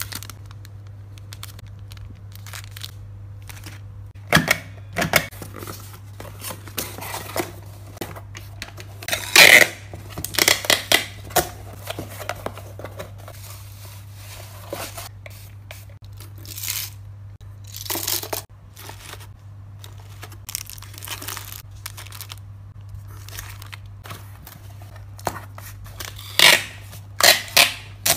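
Packing sounds: plastic candy wrappers and shredded-paper box filler crinkling and rustling in irregular bursts as items are handled and packed into a small cardboard box. Near the end, packing tape is pulled from a tape dispenser in three quick strips.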